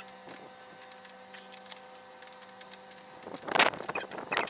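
Handling noise from gloved hands working a tube of black RTV silicone and an engine part: a few faint clicks, then a short, loud rustling scrape about three and a half seconds in and a briefer one just before the end, over a steady hum.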